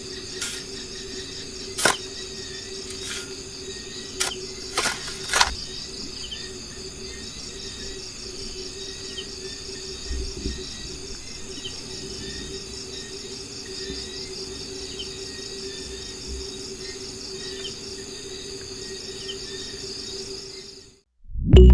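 A steady, high-pitched insect chorus, with a few sharp clicks in the first six seconds. It cuts off suddenly near the end.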